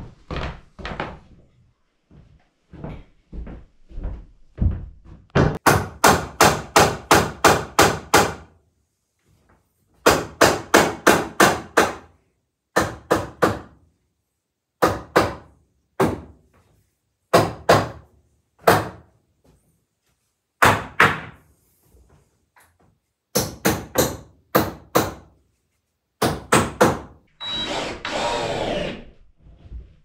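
A hatchet swung as a hammer against a wooden board, knocking in quick runs of several blows a few times a second, then in single blows a second or two apart. Near the end a cordless drill runs for about a second and a half.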